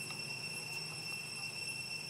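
Steady high-pitched whine holding one pitch throughout, over a faint low hum.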